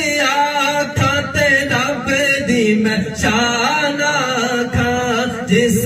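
A man singing a Punjabi devotional kalam solo into a microphone. He holds long, ornamented phrases whose pitch waves and glides without break.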